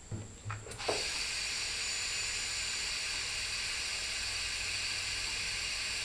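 A few light knocks, then from about a second in a steady hiss of compressed air flowing through an air chuck into a freshly mounted tractor tire's inner tube as it is inflated.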